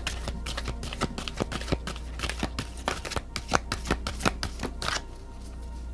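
A deck of oracle cards being shuffled by hand: a quick, uneven run of crisp card flicks and taps that stops about five seconds in.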